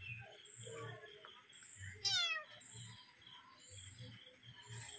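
A cat meows once about two seconds in, a short call that falls in pitch.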